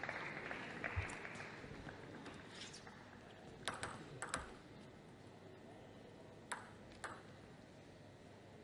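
Table tennis ball clicking off bats and table: three sharp clicks in quick succession about three and a half seconds in, then two more about half a second apart near seven seconds.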